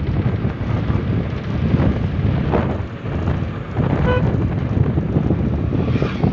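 Wind buffeting the microphone as a steady, loud low rumble. About four seconds in there is one short pitched beep-like tone.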